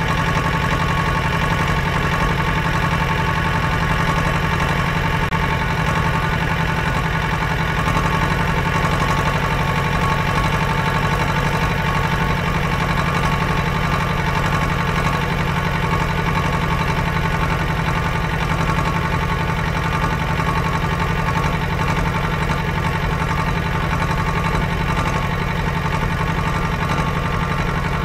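Heavy machinery engine running at a constant speed: an even, unchanging drone with no revving.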